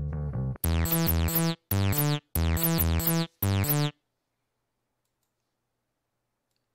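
A bass guitar riff sound effect ends, and a synthesizer keyboard riff sound effect plays in four short phrases with quick falling sweeps. It cuts off abruptly about four seconds in.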